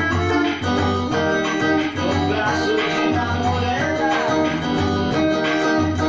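Electric guitar playing a melody over a backing track with bass and a steady beat, in an instrumental stretch of a xote song.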